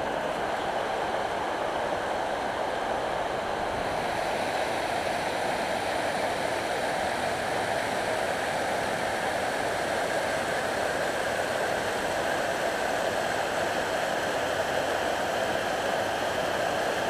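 Water pouring over a concrete river weir and churning below it, a steady rushing sound.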